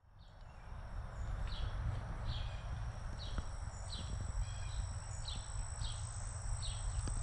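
Summer outdoor ambience fading in: a steady high insect drone and a short chirp repeated about every three-quarters of a second, over a low rumble, with a few soft clicks near the end.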